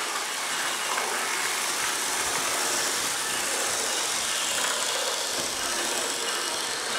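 HO scale model train running, a steady mechanical noise with no clear bell or horn tone.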